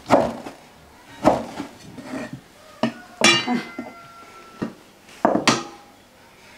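Cleaver chopping through cured pork belly onto a wooden chopping board, a few heavy knocks about a second apart, then kitchenware being handled and set down, one clink ringing briefly about three seconds in.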